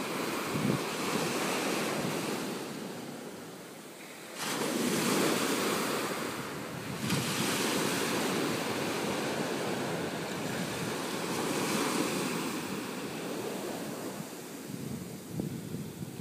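Small waves breaking and washing up a sandy shore, the surf noise swelling and easing, with a sudden rise about four seconds in. Wind buffets the microphone.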